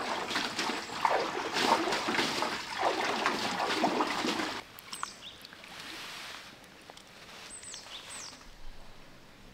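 Water rushing and splashing, loud and uneven, cutting off suddenly about halfway through. After it comes quieter outdoor ambience with a few short, high, falling bird chirps.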